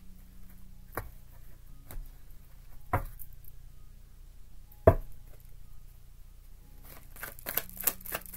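Three separate knocks about two seconds apart, the loudest about five seconds in, as a tarot deck is handled on a tabletop, then a quick run of card clicks as the deck is shuffled by hand near the end.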